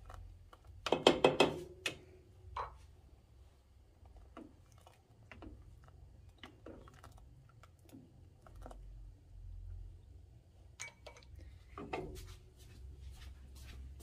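Kitchen utensils knocking and clicking against a stainless steel pot of milk: a loud rattle of several quick knocks about a second in, scattered light clicks after it, and another short cluster of knocks near the end.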